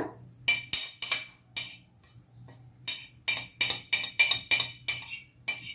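A knife tapping and scraping on a small plate, gathering up the seeds and sticky pulp: sharp, ringing clinks, about four in the first second and a half, then a quicker run of about ten.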